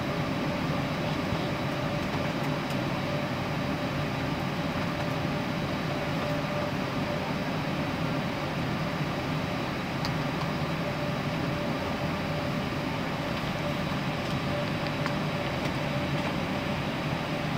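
Steady airliner cabin noise, an even rushing hum with a faint steady tone running through it, and a few faint clicks.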